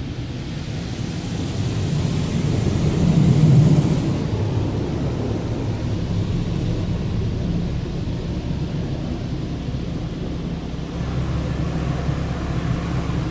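High-pressure rinse jets of a Kondor touchless car wash spraying a van, heard from inside the cabin: a steady rush of water over the body and glass, loudest about three to four seconds in, with a low machinery hum beneath.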